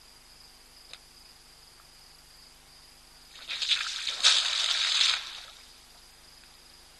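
An African elephant blowing water from its trunk: a loud spray and splash lasting about two seconds, starting about halfway through.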